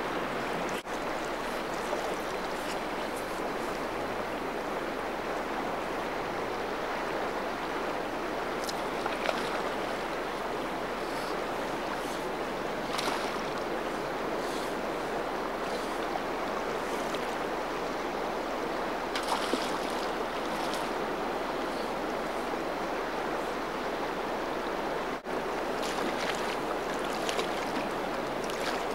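Steady rush of a flowing river, with a few short splashes.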